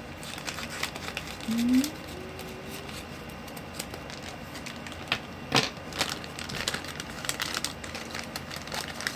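Plastic blind-bag packaging crinkling and crackling as it is handled and opened, with many small irregular crackles and one sharper crackle a little past halfway.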